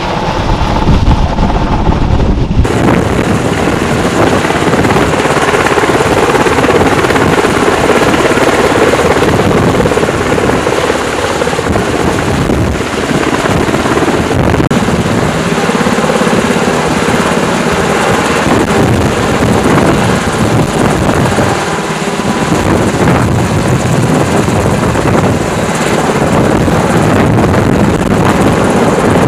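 UH-60L Black Hawk helicopter hovering low over the water, its main rotor running loud and continuous, with the hiss of rotor downwash driving spray off the water around the dipped Bambi Bucket. The sound changes abruptly about two and a half seconds in.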